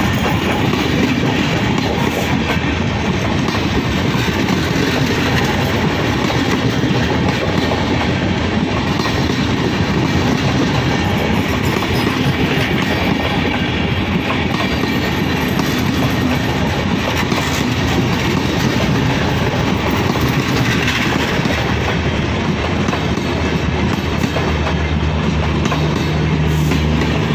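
Passenger coaches of the Banalata Express passenger train rolling past close by: a steady rush of wheel and rail noise with a clickety-clack over the rail joints. Near the end a deep steady hum joins in as the train's power car, its generator running, comes past.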